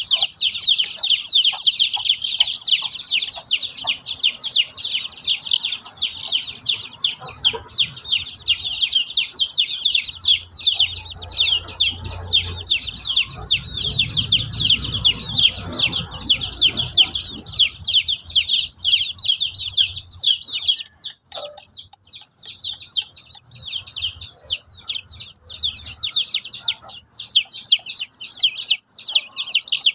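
A brood of young chicks peeping continuously: many short, high, falling chirps overlapping, thinning briefly a little past two-thirds of the way in. A low rumble swells under them about halfway through.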